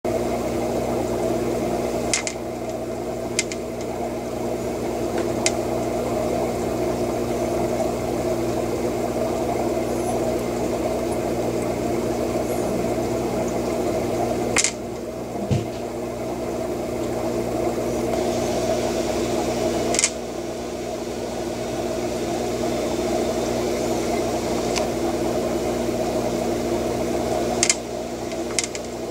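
Glass marbles clicking sharply now and then as a goldfish pecks and knocks them, about eight taps spread unevenly over half a minute, over a steady mechanical hum.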